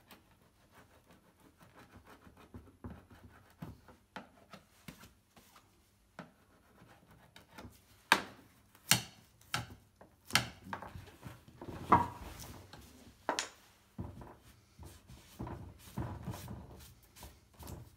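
Old sealer being scraped and picked off a fuel tank's breather fitting with a hand tool: scattered scratching and rubbing, with several sharp knocks and taps about halfway through.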